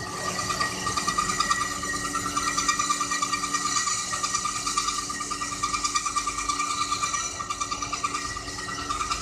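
CS280 horizontal metal-cutting bandsaw with its blade cutting through a solid round metal bar: a steady ringing whine from the blade with a fast, even flutter.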